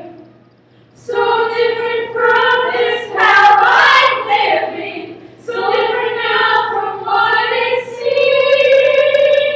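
A small group of women singing a song together in long held notes. The song comes in three phrases, starting about a second in.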